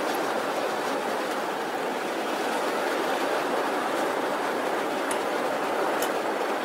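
Steady roar of surf breaking on a sandy beach, an even wash of noise with no pauses.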